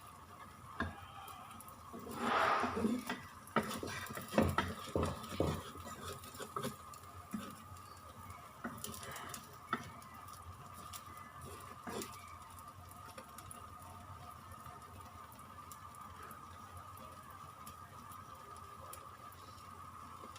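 Vegetable omelette cooking in a frying pan, with a few knocks and scrapes of a utensil against the pan in the first several seconds, over a faint steady whine.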